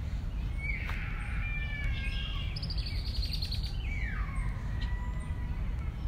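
Wild birds singing: a few clear whistled phrases that slide down in pitch, and a brief high trill about halfway through, over a steady low outdoor rumble.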